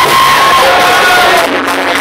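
Crowd of spectators cheering and shouting loudly over waltz music, including one long held cry. The cheering eases about a second and a half in, leaving the music clearer.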